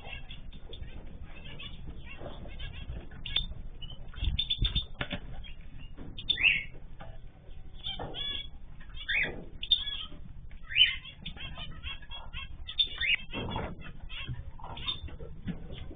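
Caged ornamental birds chirping and calling together: a constant scatter of short chirps, broken every second or two by a louder call that falls in pitch.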